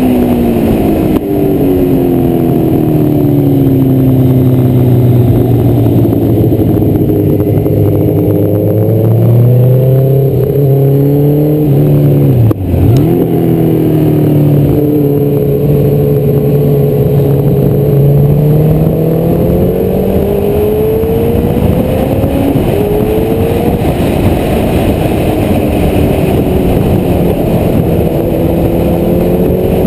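Honda CBR1100XX Blackbird's inline-four engine running hard at track speed, its revs rising and falling through the corners over steady wind noise. About thirteen seconds in the pitch and level dip sharply and climb back.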